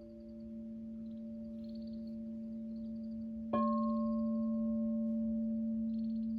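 Crystal singing bowl ringing with one steady, sustained tone and its overtones. About three and a half seconds in the bowl is struck again and the tone rings louder.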